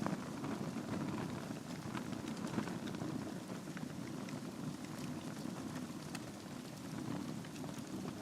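Wood fire burning in a fireplace: a steady low rush of flames with frequent small crackles and pops from the logs.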